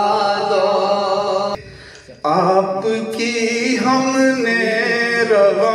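A man singing long, drawn-out wavering notes over music. The singing breaks off briefly about one and a half seconds in, then resumes.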